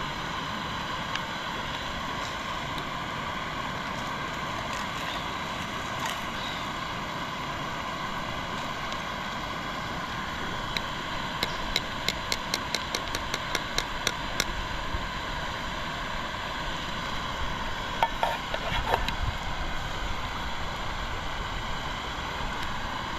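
Steady rushing of a river flowing around the rock, with a quick run of light ticks about halfway through and a few metal clinks with a short ring a little later.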